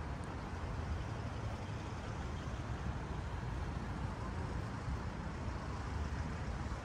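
Steady road traffic noise, a low even rumble of cars going by on the street alongside.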